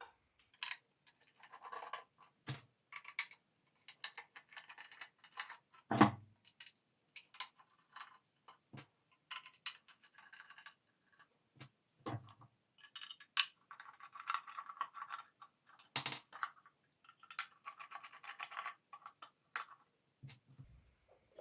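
Screws being taken out of the base of a lamp: several short spells of screwdriver noise, broken by knocks and clicks as screws and parts are handled. The loudest knock comes about six seconds in.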